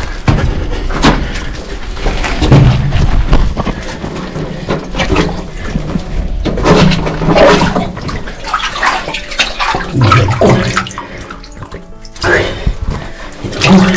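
Hands and knees splashing and sloshing through shallow water on a mine tunnel floor, an irregular series of splashes and scrapes from a person crawling.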